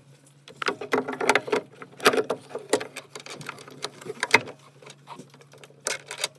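Hands fitting a new diverter valve into the pump housing of a Vaillant ecoTEC plus boiler: an irregular run of clicks, knocks and rustling as the part is pushed into place, over a steady low hum.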